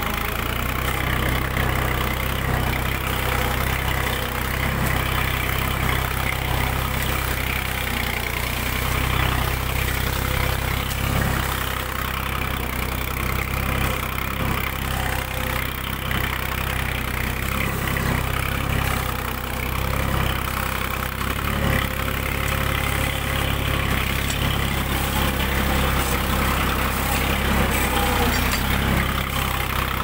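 Tractor engine running steadily under load, pulling a tine cultivator through the soil, heard from close on board.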